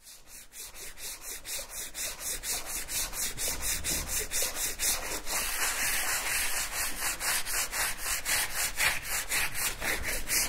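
Hand sanding on a sculpture's surface: quick back-and-forth rubbing strokes, roughly four or five a second, growing louder over the first two seconds and then holding steady.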